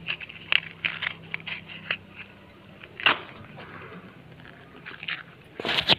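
Irregular small crackles and snaps from a wood and dry-grass cooking fire, thickest in the first two seconds, with a sharper crack about three seconds in. A louder rush of noise comes just before the end.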